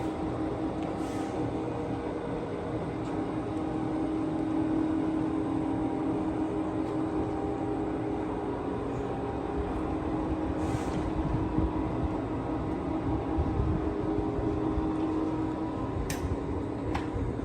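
Poreba TPK90 engine lathe running with its spindle turning under power, a steady, smooth hum of several constant tones from the geared headstock. A couple of light clicks sound near the end.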